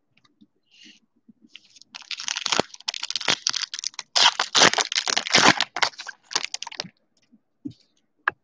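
Foil wrapper of a 2020 Topps Allen & Ginter Chrome card pack crinkling and tearing as it is ripped open by hand, a dense crackle of about five seconds starting about two seconds in.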